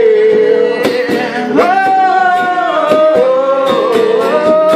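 Song with a voice singing long held, wavering notes over a strummed acoustic guitar.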